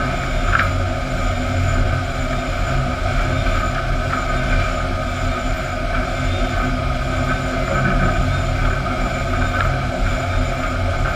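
Sawmill machinery and chain transfer conveyors carrying fence boards, running steadily: a continuous rumble and hum with several steady tones. A few faint knocks come through, about half a second in, around four seconds in and near the end.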